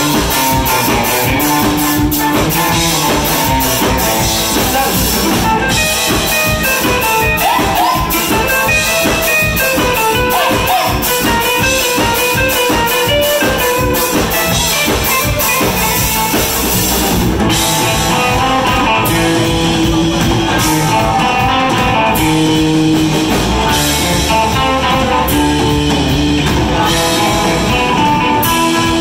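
Live rock band playing an up-tempo surf-rock number: electric guitar, bass balalaika and drum kit, with keyboard.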